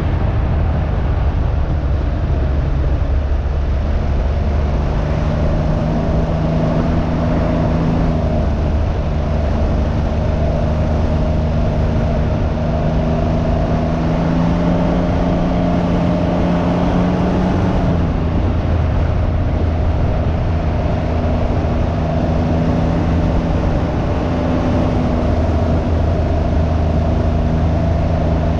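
Can-Am Ryker 900's three-cylinder Rotax engine running under way, its pitch climbing slowly and then dropping about eighteen seconds in, with steady wind rush on the microphone.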